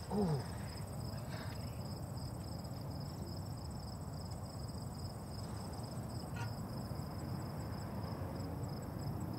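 Crickets chirping steadily, a constant high trill with a faster pulsing one above it, over a low steady rumble. A short falling vocal grunt comes right at the start.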